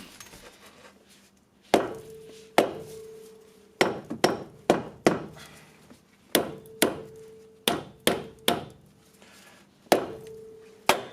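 Hammer blows on the axle nut left on the end of a Chevy Cobalt front drive axle, knocking the axle's splined end out of the wheel hub: about a dozen sharp metal strikes in irregular groups, several leaving a brief ringing tone.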